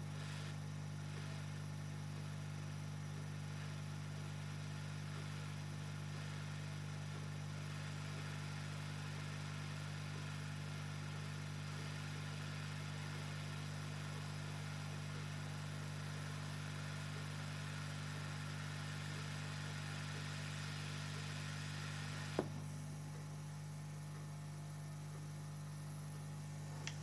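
Hot-air reflow station running: a steady hum and airy whir from its blower, blowing hot air onto an NTC thermistor to heat it. A click comes about 22 seconds in, after which the airy part of the sound drops away and only a lower hum is left.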